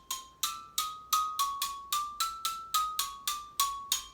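Ross xylophone played in a quick run of about fourteen notes, roughly three a second, stepping up and down within a narrow range; each note has a sharp clicky attack and a short ring, and the last one fades out just after the run ends.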